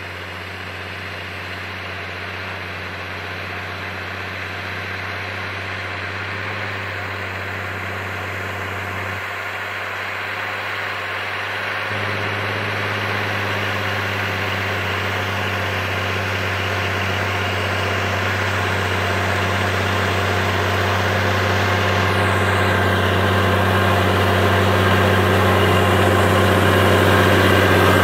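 Belarus MTZ 1221.5 tractor's six-cylinder diesel engine running steadily under load as it pulls a subsoiler through the soil, growing louder as the tractor approaches.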